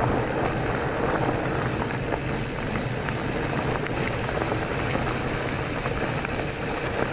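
Mountain bike rolling along a trail: a steady rush of wind and tyre noise with scattered small ticks.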